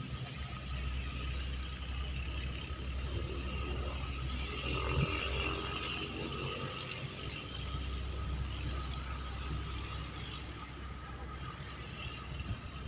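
Radio-controlled model CN-235's motors and propellers running with a steady whine as the model flies in low and lands, over a constant low rumble of wind on the microphone.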